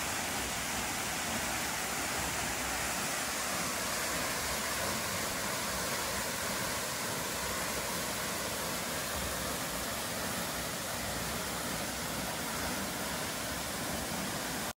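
Steady rushing of a waterfall, an even hiss spread across low and high pitches without any change, cutting off suddenly at the end.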